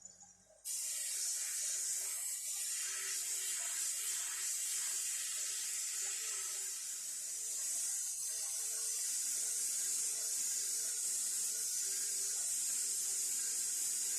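Bench sander grinding the steel head of an old Bahco adjustable wrench to take out rust pitting: a steady, high hiss of abrasive on metal, with a faint motor hum under it. It cuts in suddenly just under a second in.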